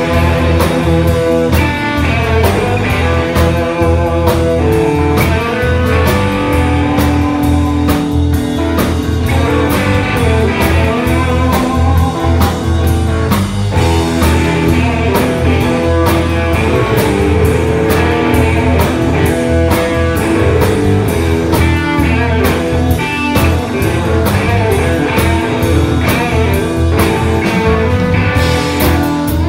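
Live blues-rock band playing loud and steady: electric guitar leads over bass guitar and drum kit, amplified, with no singing.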